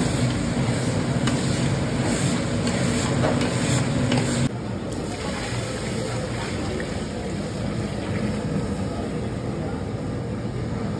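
A spiced mixture frying in a large iron kadhai, with a steady low rumble under it. About four and a half seconds in there is an abrupt cut to a quieter, even rush as water is poured into the kadhai.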